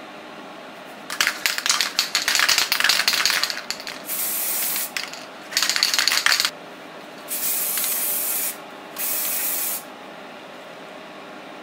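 Five short blasts of white acrylic primer being sprayed, each a loud hiss that starts and stops abruptly. The first, longest blast and the third are crackly and spitting, the other three a smooth hiss.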